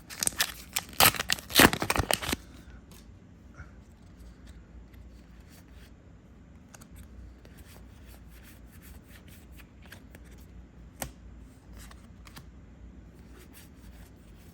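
A booster-pack wrapper being torn open and crinkled for about two seconds, followed by scattered soft flicks and taps of trading cards being handled one by one.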